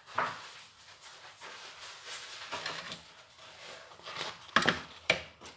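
Kitchen paper towel being handled and crumpled close to the microphone, with two sharp rustles near the end.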